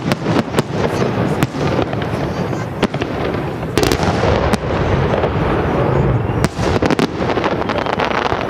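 Aerial fireworks shells bursting in a salute display: many sharp bangs in quick succession over a continuous dense rumble.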